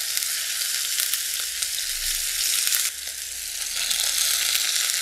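Halved tomatoes frying in hot oil: a steady sizzle that dips quieter about three seconds in, then builds back up.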